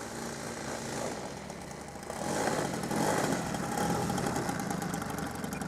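A model aircraft's 35cc petrol engine running at low throttle, growing louder and rougher about two seconds in and holding there.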